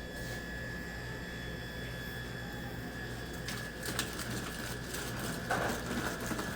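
Steady low electrical hum with a thin high whine, and a few soft clicks and short rustles of snack wrappers being handled in the last few seconds.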